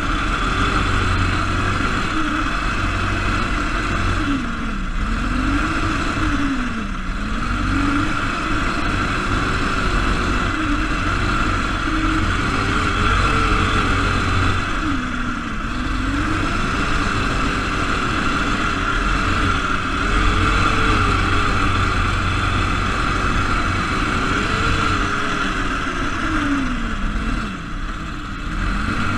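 Single-cylinder Briggs & Stratton engine of a Baja SAE off-road car heard from on board, its pitch dropping several times as the car slows into turns and rising again as it accelerates out. A steady high-pitched whine runs alongside the engine.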